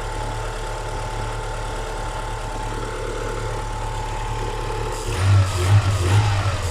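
Great Wall Hover 3 petrol engine idling smoothly with its timing belt reset to the correct marks after the belt had jumped four teeth; the earlier diesel-like knock is gone. About five seconds in, a few uneven, louder low pulses come in over the idle.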